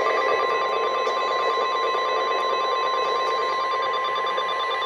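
NOAA Weather Radio warning alarm tone: a steady single 1050 Hz tone sounding over radio hiss, the attention signal that announces an incoming warning.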